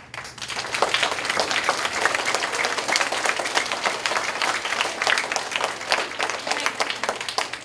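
A large audience of schoolchildren applauding. It breaks out suddenly, swells within the first second and keeps up as dense, steady clapping.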